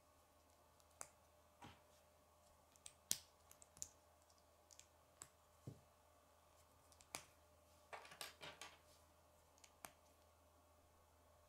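Small K'nex plastic rods and connectors clicking as they are snapped together and handled in the fingers: scattered sharp clicks, with a quick run of several clicks about eight seconds in.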